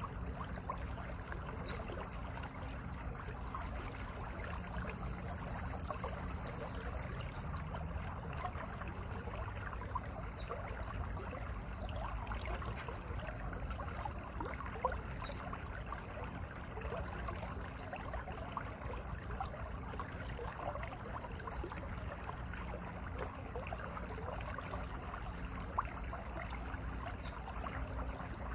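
Mountain stream flowing over rocks: a steady rush of water. A thin, high steady tone sits over it for the first six seconds or so.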